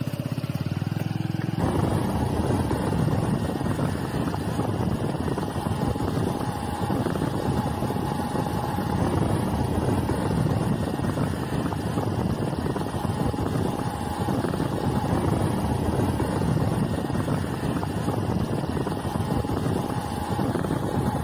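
Motorcycle engine running as the bike is ridden along a rough road, with wind rumbling on the microphone that sets in strongly about a second and a half in and stays steady.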